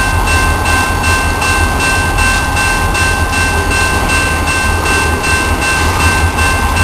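Paducah & Louisville freight train running steadily: a loud low rumble with a steady high whine over it and an even pulsing of about three beats a second.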